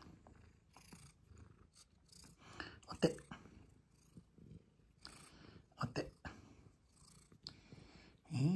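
A tabby cat purring while it nuzzles and sniffs at a person's hand, with soft clicks and rustles of fur against skin. A low voice starts just at the very end.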